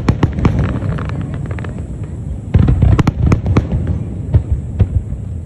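Aerial fireworks shells bursting overhead: rapid crackling over a low rumble of booms, a loud burst about two and a half seconds in, then several separate sharp bangs.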